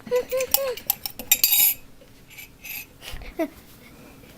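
Dry brown rice being poured into a cooking pot: a dense rattle of grains hitting the pot that stops about two seconds in.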